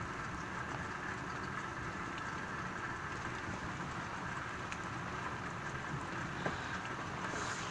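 Steady thunderstorm rain falling, with a low rumble underneath and one sharp click about six and a half seconds in.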